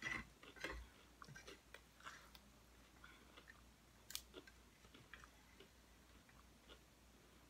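Quiet chewing of nachos, with scattered small mouth clicks and one sharper click about four seconds in.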